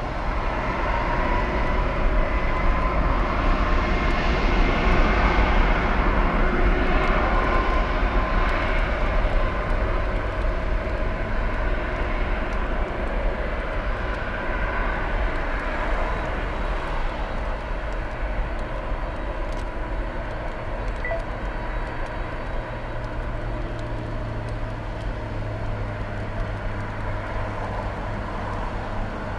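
Boeing 737 jet engines at takeoff thrust during the takeoff roll, a steady jet roar with a whining tone over a deep rumble. It builds over the first few seconds, is loudest a few seconds in, then fades slowly as the aircraft rolls away.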